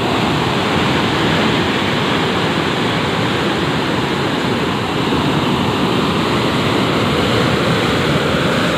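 Steady rush of a large volume of canal water pouring through the open sluice gates of a concrete canal regulator and churning into turbulent white water.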